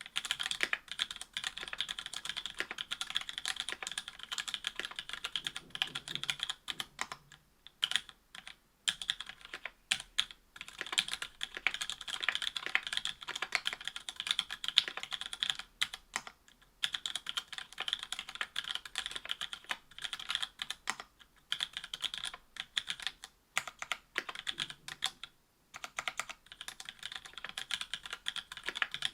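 Typing on a Duck Orion V2.5 keyboard with stock, unlubed Cherry Hyperglide MX Black linear switches in an FR-4 plate, under GMK keycaps: a fast, continuous run of keystroke clacks, broken by a few short pauses.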